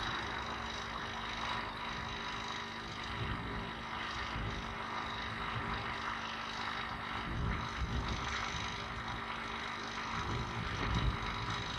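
Steady hiss and a constant hum, with irregular low rumbles, on old camcorder audio recorded outdoors.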